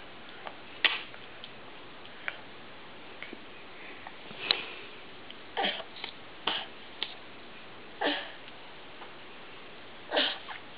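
A baby's mouth and breathing noises while eating an ice cream cone: about ten short smacks and breaths scattered through the quiet, a few of them longer and breathier.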